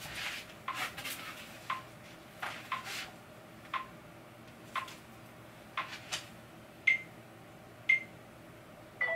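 Short electronic beeps, about one a second, with the last three higher in pitch.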